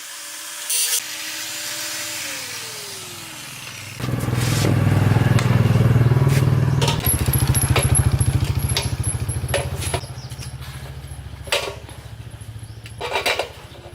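A small engine starts up about four seconds in and runs with a fast, even firing beat, loudest at first and then settling to a lower level. A few sharp knocks come near the end.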